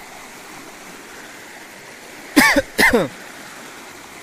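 A swollen, muddy river in flood rushing steadily past the bank. About two and a half seconds in, two short, loud calls, each falling in pitch, sound half a second apart over it.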